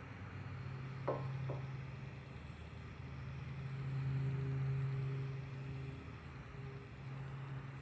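Heat gun running steadily with a low motor hum while shrinking heat-shrink tubing over a soldered wire splice; it grows louder about four seconds in, and two light ticks come just after the first second.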